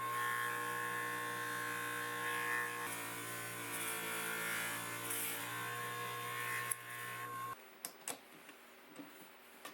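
Electric motor of a homemade wooden lathe running with a steady hum, cutting off abruptly about three-quarters of the way through, followed by a few light clicks.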